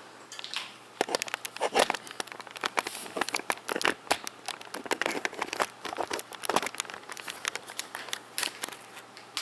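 Plastic packaging crinkling and rustling as it is handled, a steady run of irregular sharp crackles.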